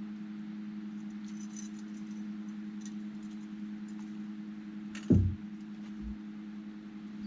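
Boat motor humming steadily while trolling, with light rattles early on and a loud knock against the boat about five seconds in as a trout is netted aboard.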